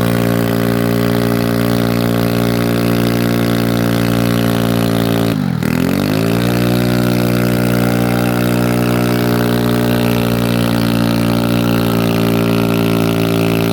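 Rotary engine held at high revs during a burnout, a steady drone whose pitch dips briefly about five and a half seconds in and then climbs back to the same level.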